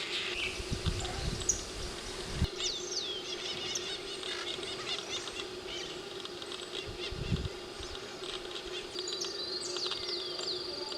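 Birds chirping outdoors, with short, high, falling calls in several bursts over a steady low hum. A few low bumps are heard early and midway, and a thin steady high tone joins near the end.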